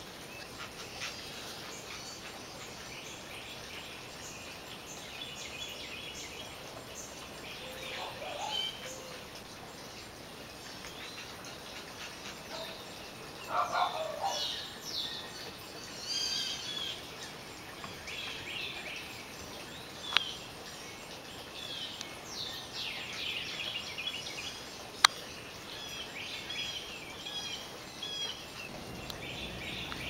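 Small birds chirping on and off over a steady outdoor hiss, with a louder, lower call about fourteen seconds in. Two sharp clicks, about twenty and twenty-five seconds in.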